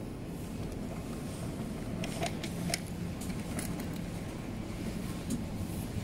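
Supermarket background: a steady low hum of store machinery, with a few light clicks and ticks scattered through the middle.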